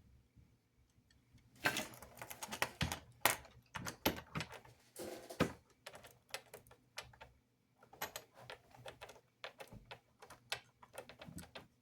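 Irregular small clicks and taps of plastic and metal parts being handled, starting a couple of seconds in: a model locomotive's front truck being fitted back in place and worked on its pivot.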